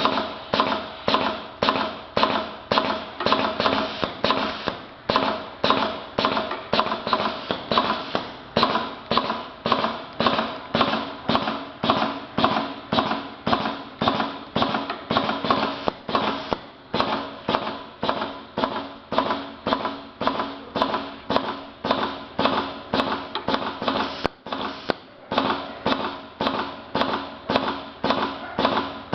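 Automatic belt-loop and tape cutting machine running, its blade striking in an even rhythm of about two cuts a second.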